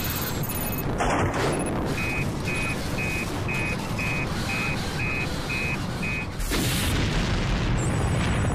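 Dramatised soundtrack effects: a dense, steady rumbling roar with a run of about nine short electronic beeps, two a second, in the middle. Near the end a deep boom swells up and a high warbling alarm-like tone begins.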